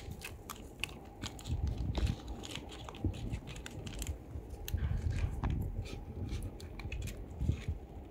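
Wet cat food squeezed from a foil pouch, the pouch crinkling in the hands, while a cat chews and smacks at the food with many irregular little clicks.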